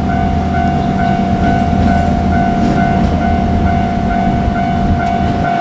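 Japanese level-crossing warning bell ringing in a fast, even rhythm as a JR Kyushu 817-series electric train passes, its rumble and wheel clicks running underneath.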